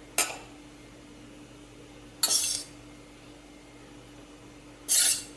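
Steel spoon clinking and scraping against a stainless-steel puttu tube and bowl while rice flour is spooned in: a short clink, then two brief scrapes a couple of seconds apart, over a faint steady hum.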